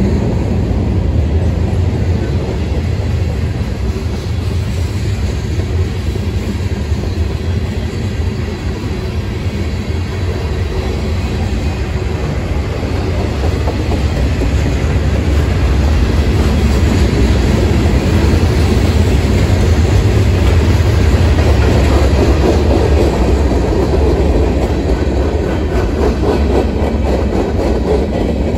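A heavy mixed freight train's tank cars, covered hoppers and autorack rolling steadily past on the track: a continuous low rumble of steel wheels on rail.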